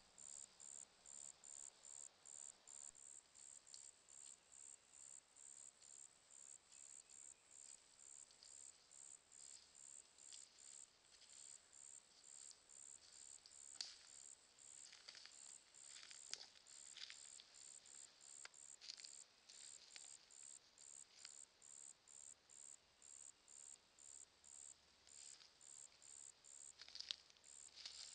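Insect chirping in an even, high-pitched rhythm of about two chirps a second, faint and unbroken, with a few faint short chirps scattered over it.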